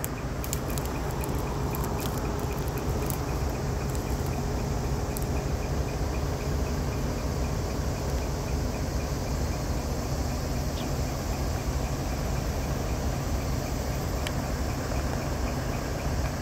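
Truck engine idling steadily with a low, even rumble, with a faint, regular ticking above it.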